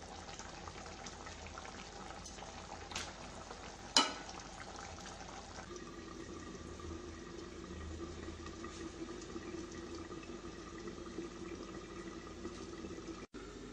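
Chicken curry boiling in a clay pot, a crackly bubbling with one sharp knock about four seconds in. After that, with the steel lid on, it goes on as a steadier, muffled simmer.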